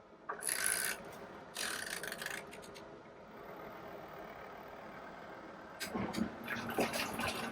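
Portable twin-tub washing machine: two short mechanical bursts as the wash timer is set, then the wash motor runs steadily, agitating the load, with more irregular sloshing and rattling near the end.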